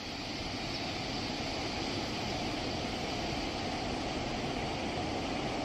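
Steady roar of floodwater rushing from the open spillway gates of a dam into the river below.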